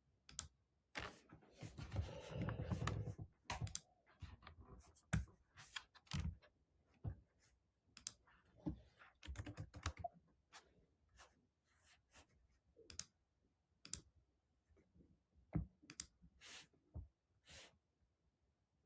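Faint, irregular clicks and taps of typing on a computer keyboard, with a denser stretch of rustling and tapping about a second in that lasts a couple of seconds.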